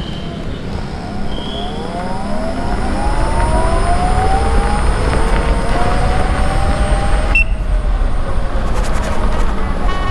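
Begode RS 19 high-torque electric unicycle's hub motor whining as the wheel accelerates hard, its pitch rising over several seconds, with heavy wind rumble on the microphone. Near the end a second whine falls in pitch.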